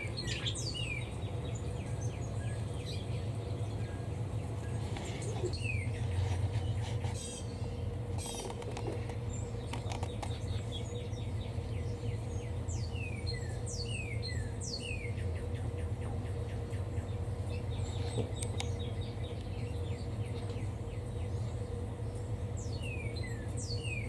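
Pet budgerigars chirping: short, quick downward chirps, scattered and in little runs, over a steady low hum.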